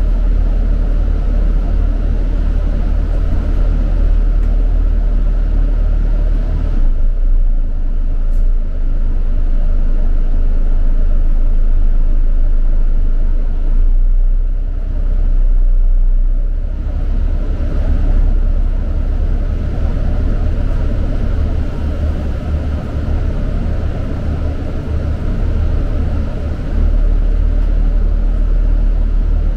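Moving London bus heard from inside the passenger cabin: a steady deep engine and road rumble with tyre noise. The higher part of the noise eases off briefly twice along the way.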